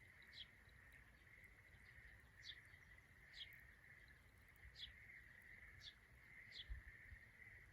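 Faint bird calls: a short, high, falling chirp repeated every second or two over a steady faint high-pitched hiss.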